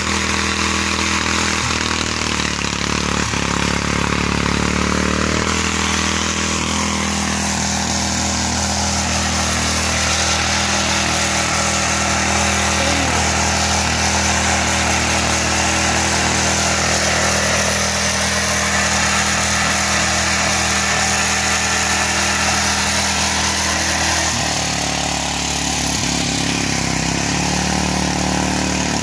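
Mitsubishi rotary tiller's small engine running steadily while tilling garden soil, its note shifting about five seconds in and again near the end.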